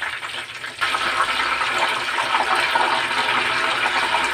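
Breaded chicken cordon bleu deep-frying in hot oil in a small pot: a steady crackling sizzle that gets louder about a second in.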